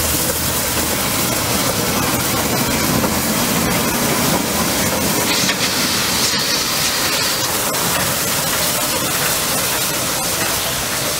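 Small steam tank locomotive under way, its cylinder drain cocks venting steam in a steady hiss, which swells into a louder, higher hiss for a couple of seconds about five seconds in.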